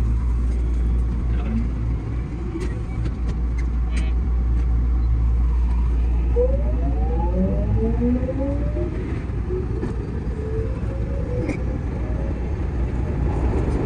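JR West 207 series electric multiple unit, its VVVF inverter and traction motors whining in several parallel tones that rise steadily in pitch as the train accelerates away from a station stop. Under it is a steady low hum from the train's equipment.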